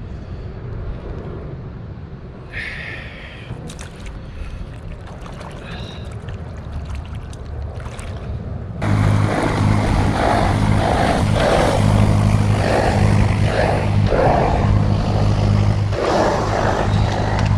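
Low rumble of water and wind around a kayak, then about nine seconds in the sound jumps louder as a motor cruiser passes close by: a steady engine drone with water noise.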